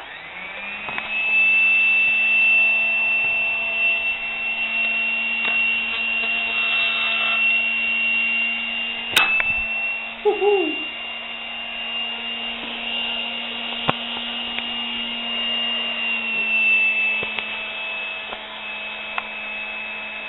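Bare kitchen-mixer brushed motor run on rectified DC from a transformer and bridge rectifier, spinning up with a rising whine, then running at speed with a steady high whine over a lower hum. It winds down and stops at the very end. A single sharp click about nine seconds in.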